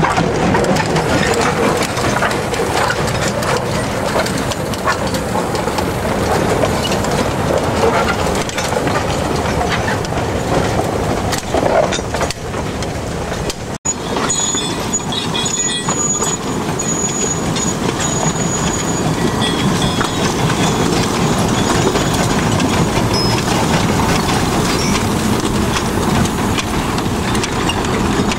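Loaded sugar cane wagons on a narrow-gauge sugar mill railway rolling past, their wheels clanking and rattling on the track. The sound breaks off for an instant about halfway through, then the rolling and clanking carries on.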